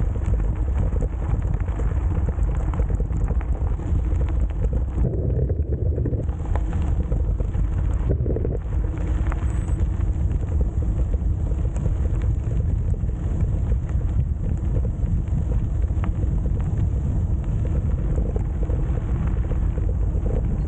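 Steady wind rumble over the microphone on a moving bicycle, mixed with tyre and road noise.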